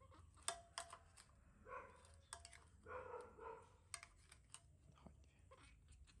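Faint, scattered sharp clicks of a knife cutting a dragon fruit against a ceramic plate, with soft whimpering calls from a baby monkey about two and three seconds in.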